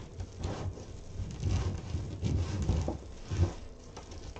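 Plastic foil deco mesh crinkling and rustling as it is gathered and scrunched in the hands, with soft knocks of handling on the work surface.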